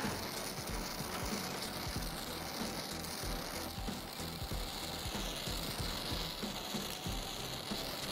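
Welding arc crackling and sizzling steadily as a torch welds a brass bracket, over background music.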